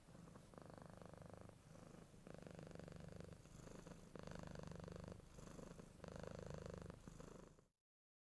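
Faint purring of a domestic cat, coming in steady phrases of about a second each with short pauses between them, and stopping abruptly near the end.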